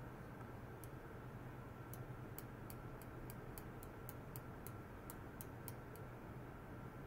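Faint sharp ticks in a fast, even series, about three a second, starting about two seconds in and stopping near the end, over a steady low electrical hum and a faint high steady tone from a bench ultrasonic test rig.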